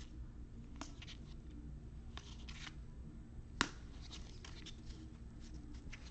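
Trading cards being handled and flipped through by hand: faint sliding and rustling with scattered light ticks, and one sharper click about three and a half seconds in.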